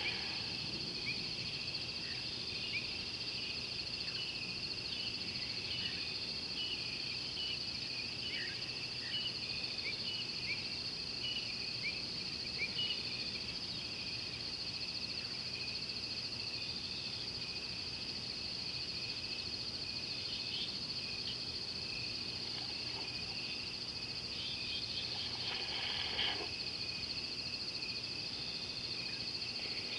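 Steady high-pitched chorus of insects, with many short chirps scattered over it and one louder brief call near the end.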